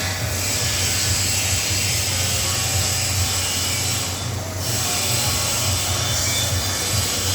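Steady workshop machine noise: a continuous hiss over a low hum, dipping briefly about a quarter second in and again just past four seconds.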